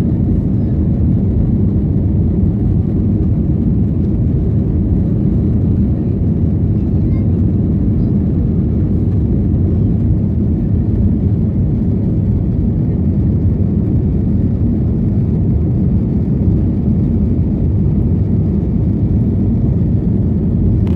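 Cabin noise of an Airbus A321 climbing after takeoff: the engines and rushing airflow make a steady low rumble heard from a window seat.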